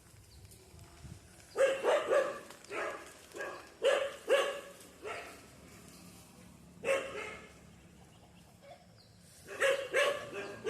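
A dog barking repeatedly in short runs of two or three barks, with a quiet gap of about two seconds before a last run of barks near the end.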